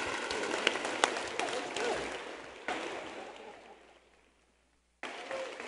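Audience applause with sharp individual claps, dying away over about four seconds. Near the end comes a brief, separate burst of room noise.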